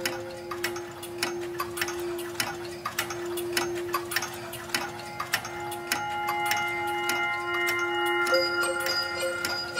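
Music with a clock ticking about three to four times a second over a single held note. More held notes join about six seconds in.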